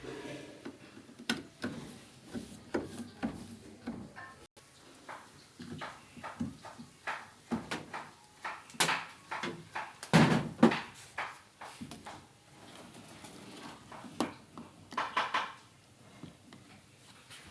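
Irregular clicks, knocks and clatter of hard parts being handled, with the loudest run of knocks about ten seconds in.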